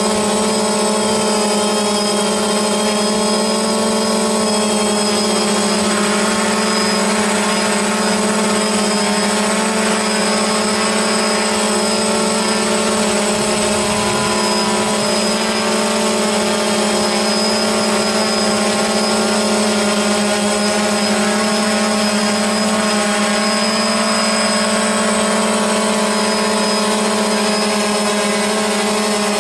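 DJI Phantom quadcopter's motors and propellers humming steadily in flight, one unchanging pitch with its overtones.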